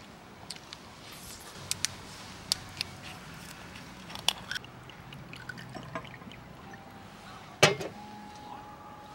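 Dishes and utensils clinking and tapping: a scattered handful of sharp clicks, with one louder knock about three-quarters of the way through.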